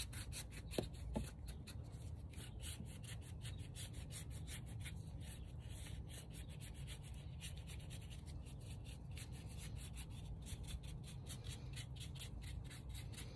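Paintbrush scrubbing in quick, rhythmic scratchy strokes across rough concrete: dry-brushing a white contrast coat over a black base coat on a concrete statue to pick out its detail.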